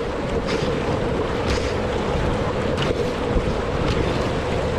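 Kayak paddle blades splashing into the river in regular strokes, with the rush of water along a slalom kayak's hull and wind buffeting the microphone.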